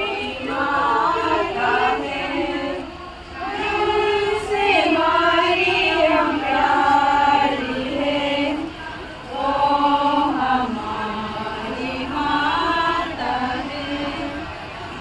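A group of voices singing a devotional hymn together in held, chant-like phrases, with brief breaths between lines about three seconds in and again near nine seconds.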